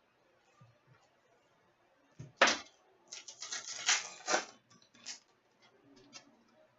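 A hockey card pack's wrapper being torn open, with one sharp rip about two seconds in followed by crinkly rustling as the wrapper and cards are handled.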